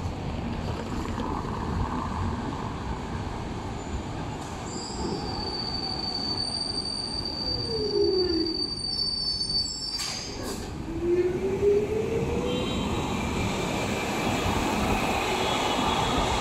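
Orange articulated Milan tram passing close by, rumbling over the rails, with a high steady wheel squeal for several seconds. A motor whine drops in pitch and then climbs again, and there is a sharp clunk about two-thirds of the way through.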